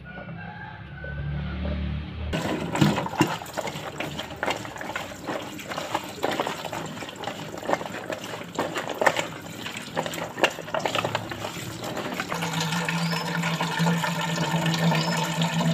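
Tap water running onto cut green beans in a metal colander, with splashing and the clicks and knocks of hands jostling the beans against the metal; about twelve seconds in it changes to a steady stream filling a metal saucepan, with a hollow, even ring.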